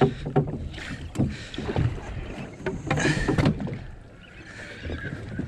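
Small fishing boat rocking on the water, with water slapping the hull and scattered knocks and clatter on deck.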